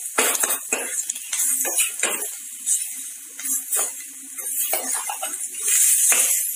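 A steel spoon scraping and knocking against a steel frying pan while onions and tomato pieces are stirred in hot oil, over a steady sizzle. The sizzle grows louder near the end.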